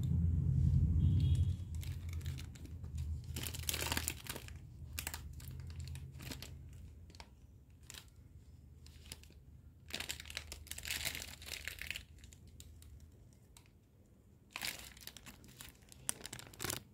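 Crinkling and tearing as hands squeeze and pull apart a soft jam-filled croissant, the crackling coming in bursts about four, eleven and fifteen seconds in. A low rumble is loudest in the first second or two.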